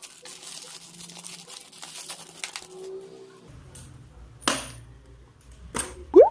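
Packaging rustling and small parts clinking as a sensor kit box is opened. About halfway a low hum sets in, with two sharp clinks, and near the end a short, loud rising sweep like an edited-in sound effect.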